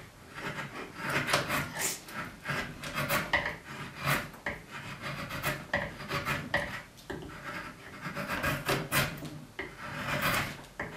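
Drawknife shaving dry hard maple: a run of short, quick scraping cuts, about one or two a second. The wood is hard and dry, so the cutting is stiff work.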